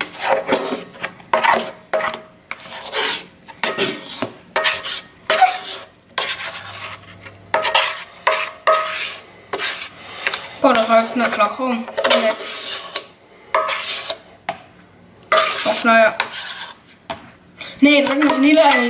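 Repeated scraping and rubbing of a spatula against a stainless-steel mixer bowl as thick whipped egg batter is scraped out, in many short strokes.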